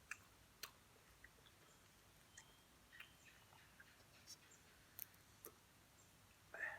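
Faint eating sounds: scattered small clicks and smacks of chewing, with one brief, louder mouth sound near the end.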